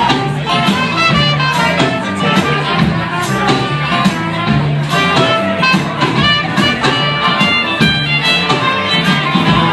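Live band playing an instrumental break, with melodic lines over a bass part and drums keeping a steady beat.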